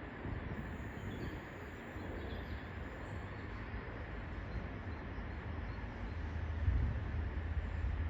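Container wagons of a freight train rolling past on the rails, a steady low rumble that swells somewhat near the end.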